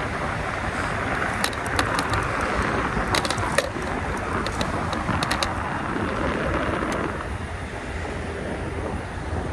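Wind rushing over the microphone and road noise during an e-bike ride on fat tires, with a scatter of sharp ticks in the first half.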